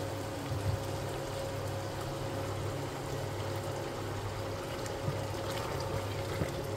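Chicken karahi sizzling and bubbling in a stainless-steel pot as it is stirred with a wooden spatula, with a few light knocks, over a steady low hum.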